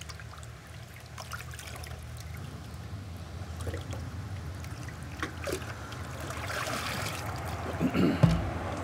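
Water trickling and splashing in a koi holding tank as young koi are handled, over a steady low hum. Near the end a plastic tub of water is tipped out into the tank, with a splash and a knock.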